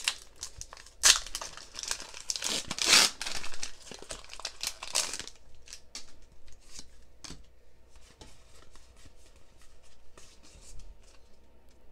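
Foil wrapper of a Pokémon trading-card booster pack being torn open and crinkled, loud for about the first five seconds. After that, quieter scattered ticks and slides as the cards inside are handled.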